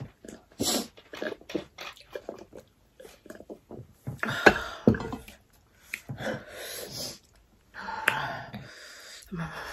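Close-miked eating and drinking sounds: gulps from a glass mug, then chewing and lip smacks in quick, irregular clicks, with a few sharper ones about halfway through.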